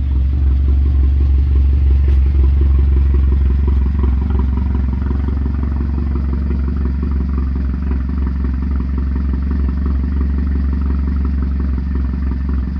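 A 2013 Hyundai Veloster's turbocharged four-cylinder engine running steadily, with a faint clatter; the owner takes the sound for a bad turbo.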